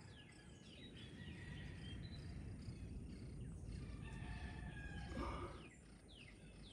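Birds chirping outdoors: many short, quick downward chirps overlapping one another, over a low steady rumble.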